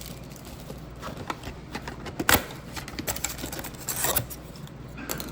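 Handling noise from a cardboard card box being opened: scattered scrapes and taps, with a sharp snap about two seconds in and a rustling scrape near four seconds.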